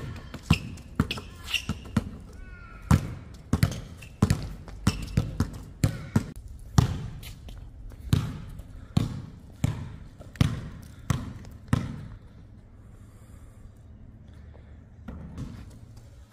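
A basketball being dribbled on a hard outdoor court: a run of even bounces at about three every two seconds, which stops about twelve seconds in.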